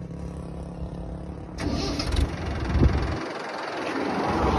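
A vehicle engine starting suddenly about a second and a half in, then running unevenly, loudest near three seconds.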